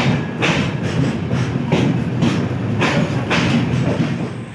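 Padatik Express passenger train pulling into the station, its wheels clattering over the rail joints in a steady rhythm of a little under two knocks a second over a low rumble.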